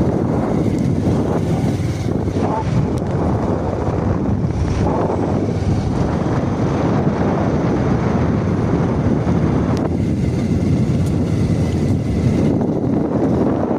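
Steady wind buffeting the microphone, a loud even rumbling noise without clear tones.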